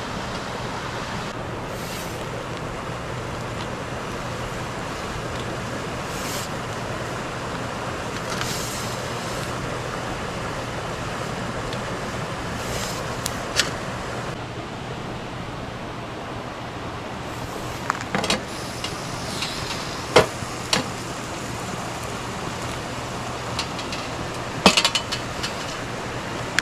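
Wood campfire burning with a steady hiss, with a few sharp pops and crackles scattered through the second half, the loudest near the end.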